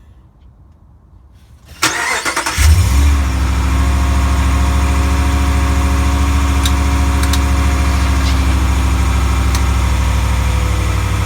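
2020 Ram 1500 Big Horn pickup starting: a sharp knock as it begins cranking about two seconds in, the engine catching under a second later and settling into a steady idle, with a few faint clicks during the idle. The start-up is where the owner hears a clunk he traces to the driveshaft.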